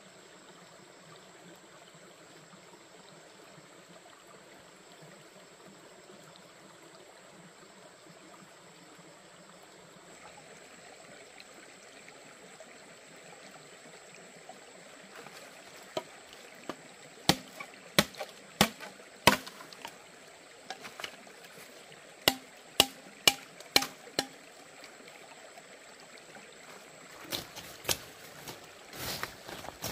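Stream water running steadily. About halfway through, a series of sharp knocks or chops starts, roughly a dozen over several seconds, with a few more near the end.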